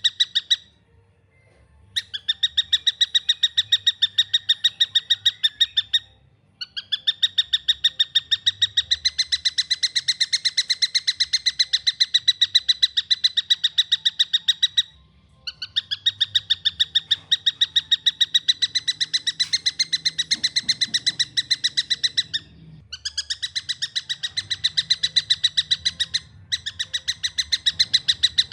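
Young tengkek buto kingfisher calling: a fast, tight string of sharp, clear repeated notes, about ten a second, in long runs broken by a few short pauses.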